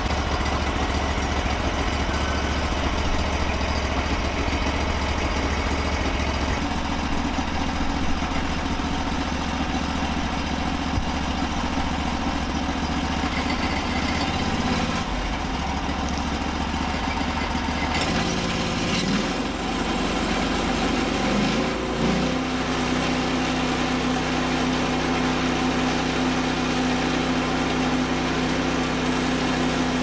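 Portable band sawmill's gas engine idling steadily, then throttled up about 18 to 22 seconds in with a rise in pitch, settling at a steady higher speed for the cut.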